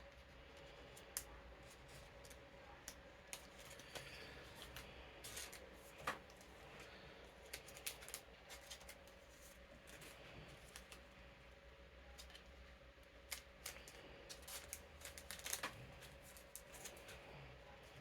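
Playing cards being handled and slid into plastic card sleeves: scattered light clicks and short rustles, over the steady hum of an electric fan.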